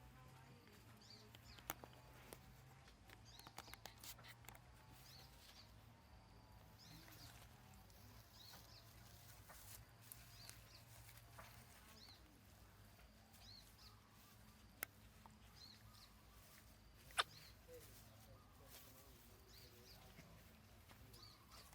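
Near silence with faint, short high chirps every second or so from a small animal or bird, over a low steady hum. A few sharp clicks, the loudest about three quarters of the way through.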